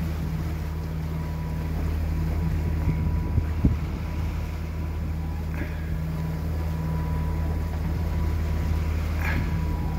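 Boat engine running steadily under way: an even low drone, with a hiss of wind and water over it.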